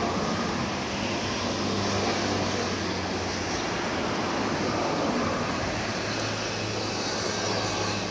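Steady mechanical hum with a constant hiss underneath.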